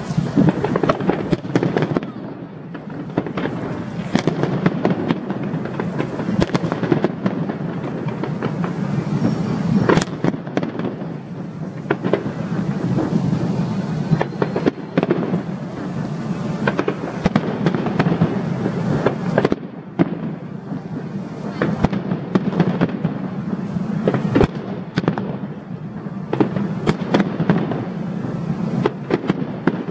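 Aerial fireworks display: a dense, continuous barrage of bangs over a steady rumble, with no let-up.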